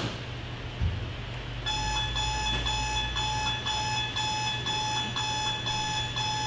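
Digital alarm clock beeping about twice a second, starting nearly two seconds in, played from a video over a hall's speakers. A soft thump comes just before it.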